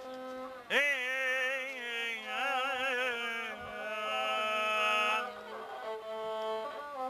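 A Bedouin rababa, a one-string bowed fiddle, playing a simple, monotonous melody of held notes, some wavering strongly and others held steady.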